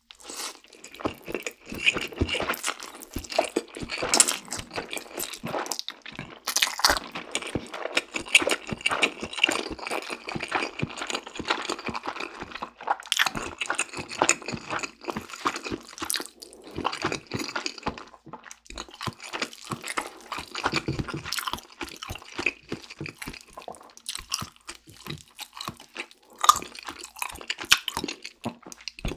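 Close-miked eating of spicy instant noodles coated in melted cheese: slurping, chewing and lip smacking, heard as a dense, irregular stream of wet clicks.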